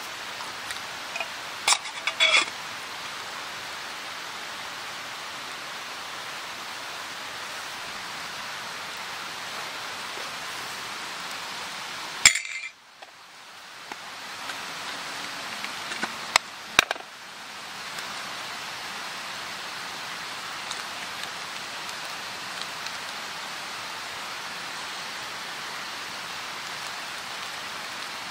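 A steady hiss with a few light clinks, a pair about two seconds in and two more around sixteen to seventeen seconds in. A sharp click comes about twelve seconds in; the hiss then drops away and slowly builds back over the next few seconds.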